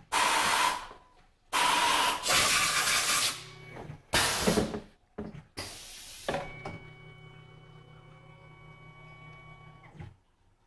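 Four loud hissing blasts of compressed air at a Tormach PCNC 1100 CNC mill; the longest lasts nearly two seconds. Under them runs a steady machine hum with a buzz, which cuts off about ten seconds in.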